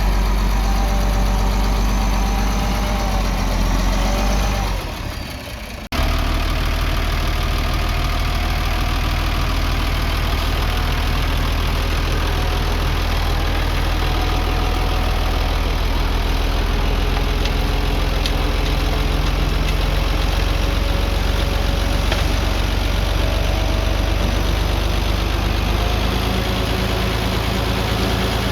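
A heavy earthmoving machine's diesel engine running steadily. It fades down about four and a half seconds in and cuts back in abruptly a second and a half later.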